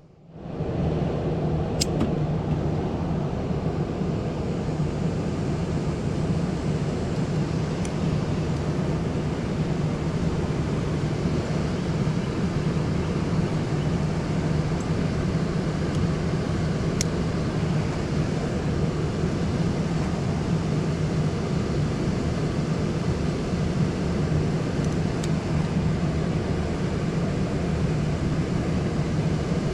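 The outdoor section of a 2008 Carrier heat pump package unit, compressor and condenser fan, running with a steady hum, its high-pressure switch bypassed so the condenser can be run for pressure checks. The sound comes up within the first half-second, then holds level, with a few faint ticks.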